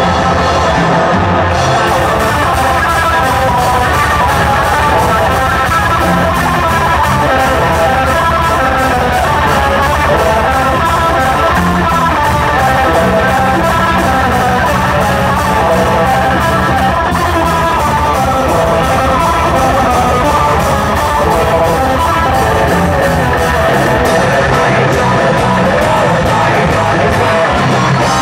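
A live metal band playing loud and fast: distorted electric guitar, bass guitar and a drum kit with rapid drumming. The cymbals come in about a second and a half in.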